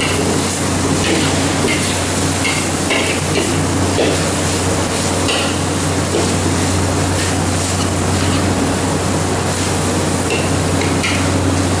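Metal spatula stirring and scraping grated coconut as it is dry-roasted in a metal wok, with short scrapes about once a second over a steady hum and hiss in the background.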